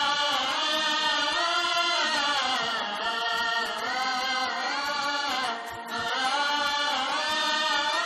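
Music with long, wordless sung notes gliding up and down, like a chant or chorus, dipping briefly about five and a half seconds in.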